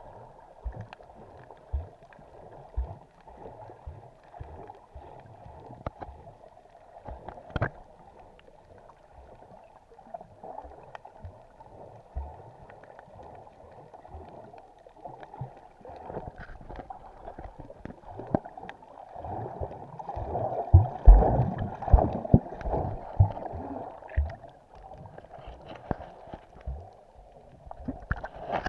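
Muffled underwater sound of water sloshing and gurgling around a submerged camera, with scattered knocks and bumps against the camera's case. The knocks come thickest and loudest for a few seconds past the middle.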